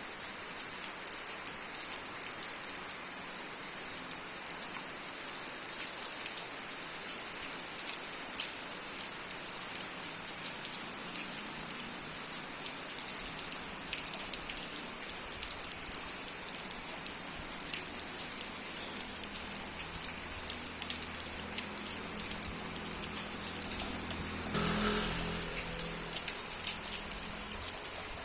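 Steady rain falling, a constant hiss with many individual drops ticking on a surface. A low rumble with a faint hum builds over the last several seconds and peaks briefly near the end.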